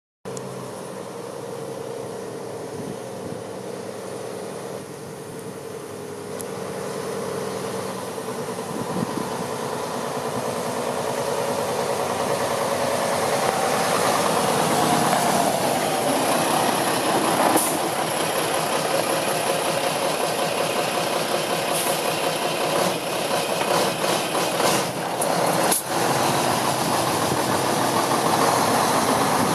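Diesel engine of a 2005 Mack CXN612 day cab tractor idling steadily, growing gradually louder, with a few short knocks in the second half.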